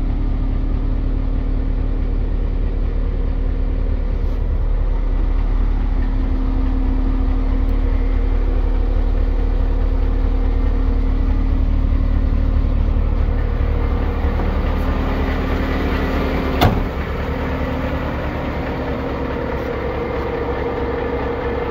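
Renault Premium 320 DCI truck's straight-six diesel idling steadily, heard from inside the cab. About three-quarters of the way through there is a single sharp bang, and after it the idle sounds lighter, with less low rumble.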